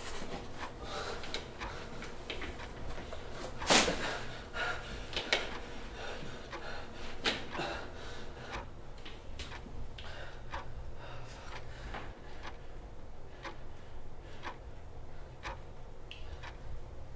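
Scattered light knocks and clicks over a low steady hum, with one sharp knock about four seconds in and a few smaller ones after it.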